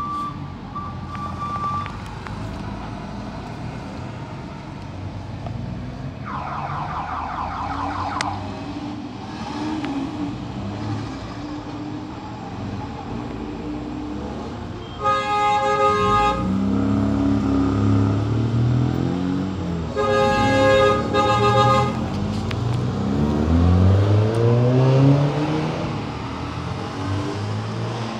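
Classic cars driving past one after another, engines running and rising in pitch as they pull away. A horn blares twice, about halfway through and again a few seconds later. There are a few short beeps at the start.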